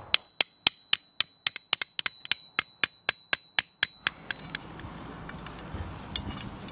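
Hammer driving steel tent stakes into the ground: a rapid run of sharp metal-on-metal strikes, about five a second, each with a ringing tone, stopping about four seconds in. A few faint clicks follow.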